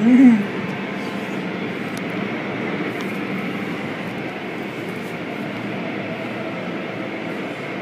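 Automatic car wash heard from inside the car: cloth brushes slapping and scrubbing against the body and window while water sprays on the glass, a steady dense wash noise. Just at the start a brief tone rises and falls, the loudest moment.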